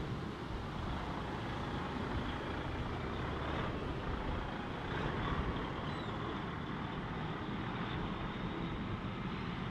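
DAF XF tractor unit without a trailer driving past, its six-cylinder diesel engine running along with tyre noise, a little louder as it goes by about halfway through and then pulling away.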